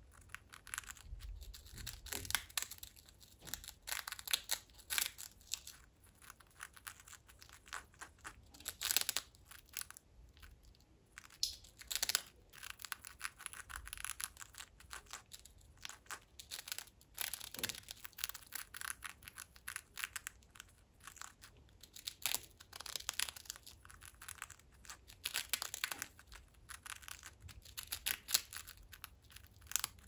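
A Senegal parrot crunching a prawn cracker in its beak: an irregular run of crisp crackles and snaps.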